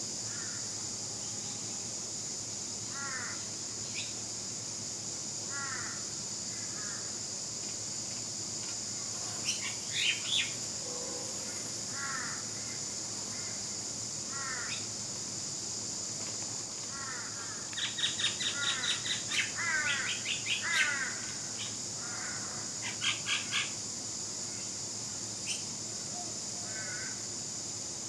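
Birds calling: short chirping notes scattered throughout, with a loud rapid run of calls about two-thirds of the way through and a shorter run just after, over a steady high-pitched insect drone.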